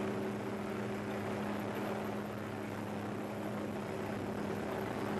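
Helicopter engine and rotor running steadily, heard from inside the cabin: an even drone with two steady humming tones.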